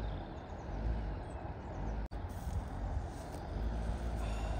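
A road vehicle running with a steady low rumble, broken by a split-second cut about two seconds in.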